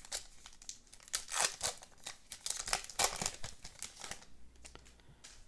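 Wrapper of a baseball-card pack crinkling and tearing as it is ripped open: several quick crinkles and rips in the first three seconds or so, then quieter rustling.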